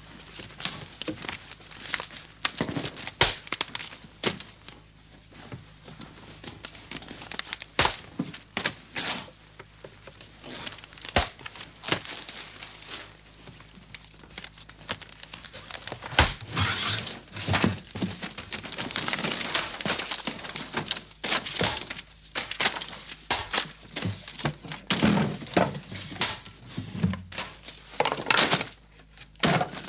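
Gloved hands pulling LP records and papers off a shelf: paper and cardboard sleeves rustling, crumpling and tearing, with frequent sharp knocks and thuds. Near the end there are heavier knocks of a wooden cabinet being wrenched apart.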